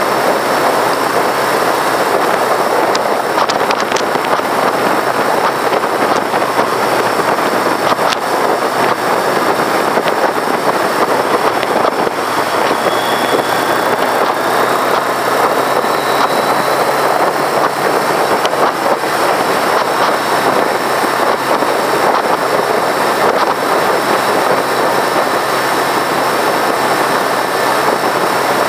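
Motorcycle riding at steady speed: wind rushing over the microphone dominates, with the 1982 Yamaha XJ650's air-cooled inline-four engine running beneath it.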